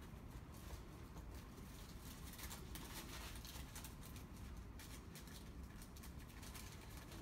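Faint, intermittent rustling and crinkling of disposable exam-table paper being pulled apart and handled, the sheets sticking together.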